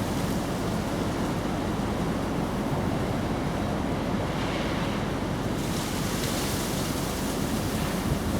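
Steady wind noise buffeting the microphone, a continuous rushing rumble that turns a little hissier about halfway through.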